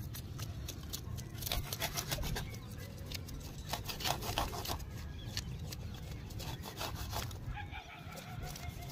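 Knife blade scraping the scales off a whole fish in quick repeated strokes.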